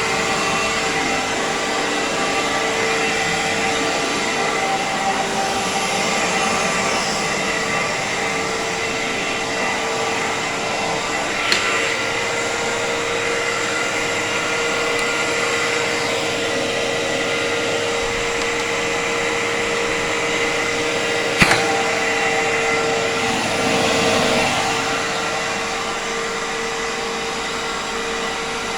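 Iona Fantom Fury 10-amp bagless upright vacuum cleaner running steadily at full power, with a constant hum. Two sharp clicks stand out over it, about eleven and twenty-one seconds in.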